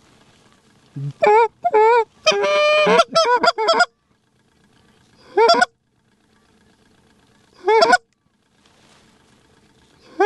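Loud, close Canada goose honks and clucks. A quick run of them comes between about one and four seconds in, then single honks follow every two seconds or so.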